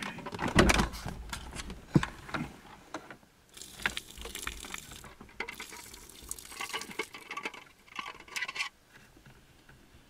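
Water being poured out of a 12-volt car coffee maker's plastic jug, a splashing pour of several seconds that stops near the end, after a few knocks and clicks from handling the jug.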